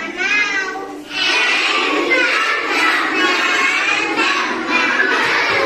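Children singing together in unison. A single voice is heard for the first second, then a group of children's voices joins in and keeps singing.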